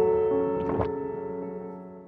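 Background music: a sustained chord that fades slowly away.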